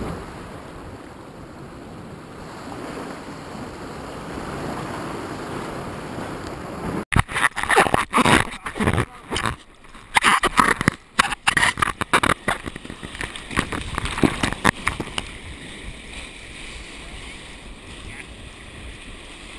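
Ocean surf and wind noise, then, from about seven seconds in, a long run of loud, choppy splashing as waves wash over a bodyboard-mounted action camera, easing into a steadier rush of whitewater near the end.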